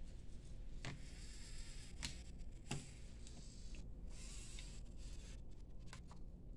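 Small servo motors of a myCobot desktop robot arm whining faintly as the arm moves, in stretches that start and stop. A few sharp clicks or knocks come in the first three seconds.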